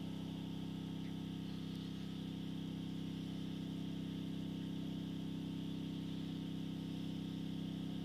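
A steady low droning hum from a toilet, with a fainter hiss above it, unchanging throughout. Its cause is unknown to the owner.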